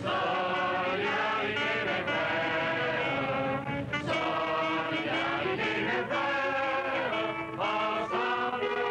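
A group of voices singing a song together in a slow melody of held notes, accompanied by an acoustic guitar.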